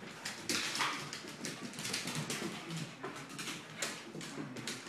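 A Border terrier and another dog at rough play, playing keep-away, with dog noises and many irregular short sharp knocks and scuffles.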